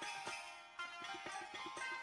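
Background music: a folk-style tune with a held melody over quick, repeated drum strokes.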